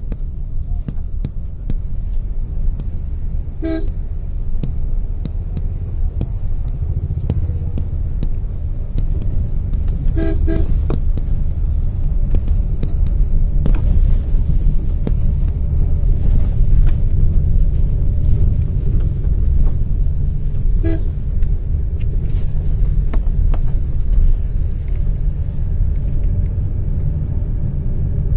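Street traffic with a steady, loud low rumble, broken by short vehicle horn toots: one about four seconds in, a quick double toot around ten seconds, and another around twenty-one seconds.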